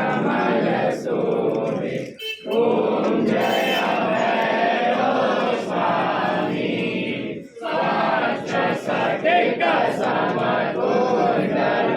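A crowd chanting devotional chants together, many voices at once, breaking briefly between phrases about two and seven and a half seconds in.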